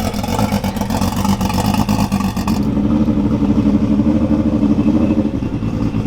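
Tuned performance car's engine running loud: a dense crackling exhaust for the first couple of seconds, then a steady held engine note that drops away at the end.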